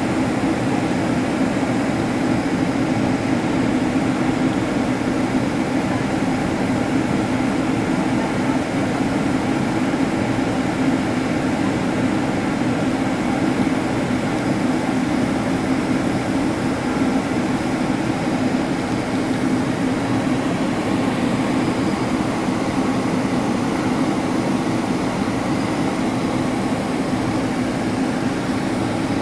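Steady cabin noise inside a Boeing 767-300 airliner on approach: the jet engines and rushing air give an even drone with a low hum, unchanging throughout.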